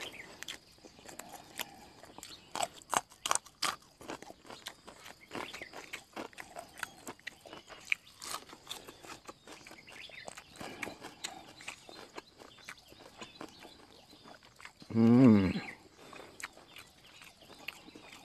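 Close-up chewing and crunching of a raw green vegetable stalk eaten with fish larb, with crisp crunches that are thickest in the first few seconds and sparser after. About fifteen seconds in, a short, low vocal sound is the loudest thing heard.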